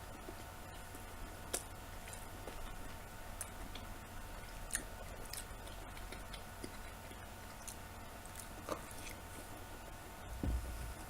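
A person chewing fresh button mushrooms: faint, irregular wet mouth clicks and squishes, with a low thump near the end.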